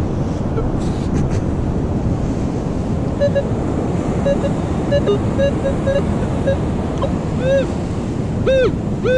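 Steady surf and wind noise, over which a metal detector gives a series of short clipped beeps from about three seconds in, then two rising-and-falling tones near the end as the coil passes back over the hole, signalling that the target is still in the ground.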